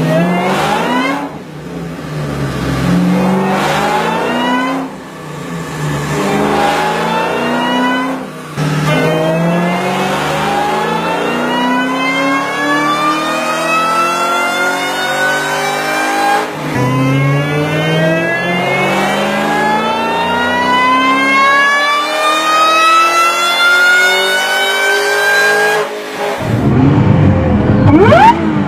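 Supercharged car accelerating hard through several gears, the supercharger whine and engine note rising steadily in each gear and dropping back at each upshift. Near the end it cuts to a car revving sharply.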